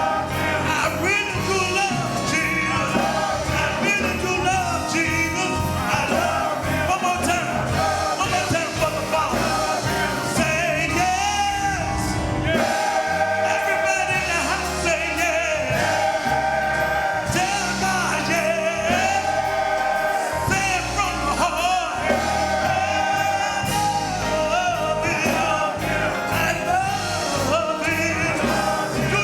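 Gospel singing with a choir and instrumental accompaniment: continuous sustained vocal lines over a steady bass.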